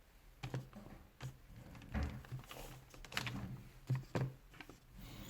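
Light clicks and knocks of small metal parts being handled while a rotary hammer's impact mechanism is taken apart: about six short knocks spread through a few seconds.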